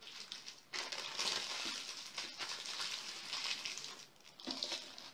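Paper wrapped around a raw meat roll crinkling and rustling as hands press and turn the roll, with short breaks about a second in and near the end.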